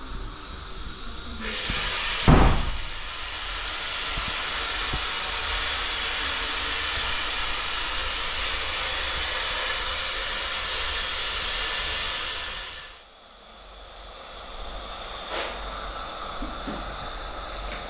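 A steady, loud hiss lasting about eleven seconds, with a sharp thump just after it begins; the hiss then fades out.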